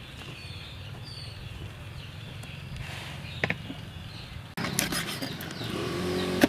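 Outdoor background of low rumble with a few faint bird chirps, cut off suddenly about two-thirds of the way in by a cleaver chopping eel on a wooden cutting board, several sharp knocks in quick succession.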